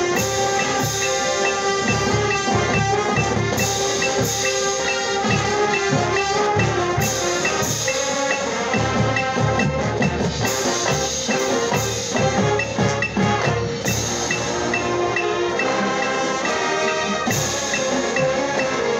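Marching band playing together: brass and wind tones over drumline strikes and front-ensemble mallet percussion such as marimbas.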